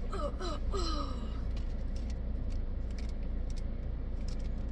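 A person's voice making drawn-out sounds that fall in pitch in the first second or so, over a steady low hum with a few faint clicks.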